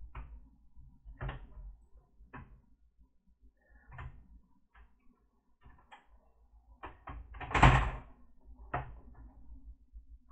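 Scattered plastic clicks and knocks from a laptop's casing being handled and worked apart, with one louder clatter about three-quarters of the way in.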